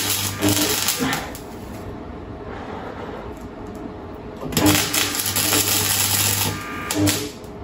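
Parkside welder's arc crackling and buzzing as a weld is run along a VW Golf Mk4's sill. The first run stops about a second in, and after a pause of about three seconds a second run lasts until near the end.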